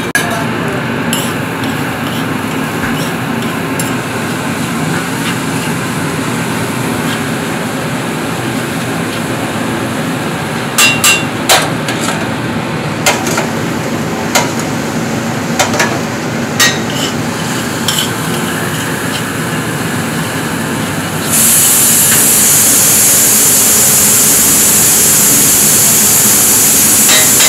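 Metal spatula clanking and scraping on a flat-top griddle while chopped paratha and egg fry, with a cluster of sharp metallic clanks in the middle. About 21 seconds in, a loud, steady sizzling hiss starts suddenly and carries on.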